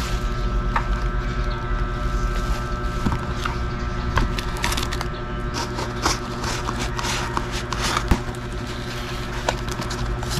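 Cardboard shipping box being handled and opened: scattered scrapes, rustles and small clicks, with one sharper click about eight seconds in, over a steady background hum.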